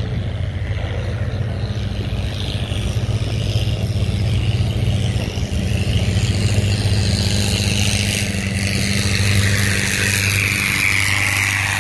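Diesel engine of a wooden fishing trawler running steadily as the boat motors past close by. A rushing hiss of water from its bow wake grows louder in the second half.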